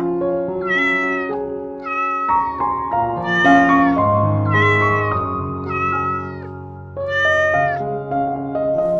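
A cat meowing six times, each meow under a second long with a slight bend in pitch, over background music with held notes.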